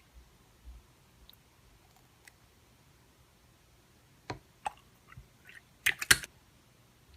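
Slime being handled and pressed, giving a few sharp clicks past the middle. A short burst of louder crackling clicks follows about six seconds in, the air pockets in the slime popping.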